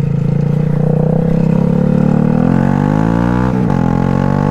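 Honda Grom's single-cylinder engine running steadily, then revving up as the bike accelerates, with a brief dip in pitch at a gear change about three and a half seconds in before it climbs again.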